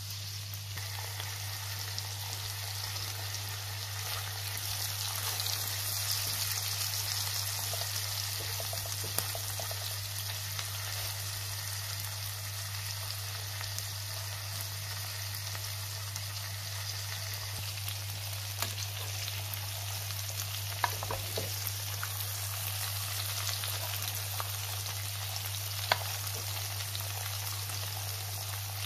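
Lamb steaks and garlic cloves frying in melted butter in a nonstick pan: a steady sizzling hiss with a few sharp pops and clicks, over a steady low hum.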